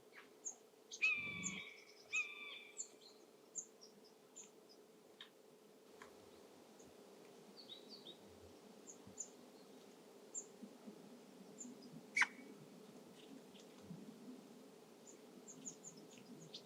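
Wild birds calling: two clear pitched calls about a second apart near the start, then faint short high chirps scattered throughout, with a single sharp click past the middle.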